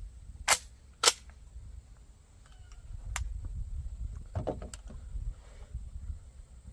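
Two suppressed 9mm gunshots about half a second apart, each a short sharp crack. A fainter crack follows about three seconds in.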